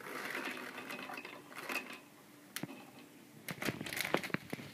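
Dry dog kibble poured from a plastic zip-top bag onto a small wooden tray: the bag rustles, then pieces of kibble click and tap onto the wood in a scattered run of sharp ticks.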